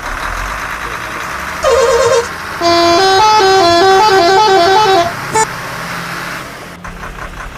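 Telolet horn playing: a short toot, then a quick melody of stepping notes for about two and a half seconds, ending with one brief toot.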